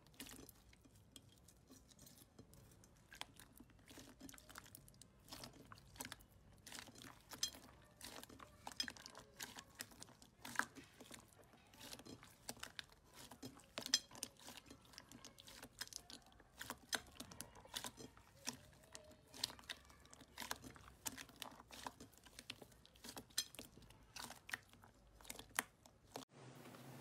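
Large mass of sticky slime being kneaded and squeezed by hand: a quiet, irregular run of crackling pops and squelches as air pockets in the slime burst.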